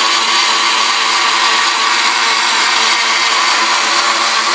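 Rival countertop blender running at a steady speed, its motor giving a constant whine while the blades churn yogurt and water in the plastic jar.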